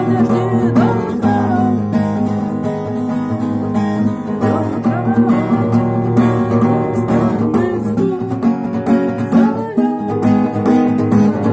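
Acoustic guitar strummed in a steady rhythm, with the sharp muted percussive strikes of the 'stuk' (chop) strumming technique.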